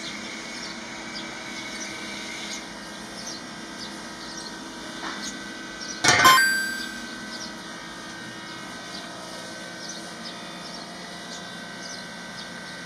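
Outdoor background with scattered faint bird chirps. About six seconds in there is a single sharp knock that rings briefly.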